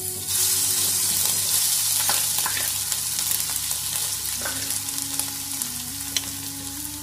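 Roughly chopped ginger and garlic frying in hot oil in a wok: a loud sizzle starts sharply as they hit the oil and slowly eases, with a few sharp pops.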